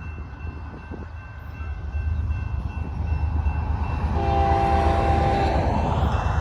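BNSF diesel locomotives pulling a stack train up a grade, a steady low engine rumble growing louder as they approach. About four seconds in, the locomotive horn sounds one short chord of about a second and a half.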